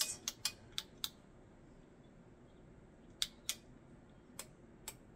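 Sharp plastic clicks of buttons being pressed on the control panel of an EENOUR double tumbler heat press: a quick run of about five at first, a pair about three seconds in, and two fainter ones near the end.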